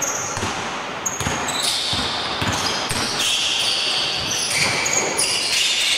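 Basketball game on an indoor court: sneakers squeak sharply and often on the floor as players cut and stop, and the ball bounces on the court during a dribble.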